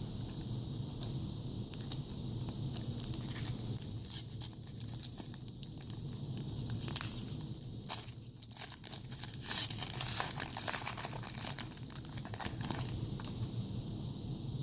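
A trading card pack wrapper being torn open and crinkled by hand, with the heaviest tearing and crackling about ten seconds in.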